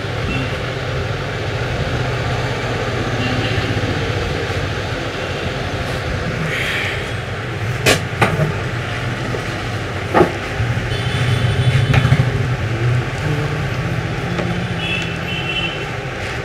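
Steady low rumble of road traffic, with three sharp clicks or snaps: two close together about eight seconds in and one about two seconds later.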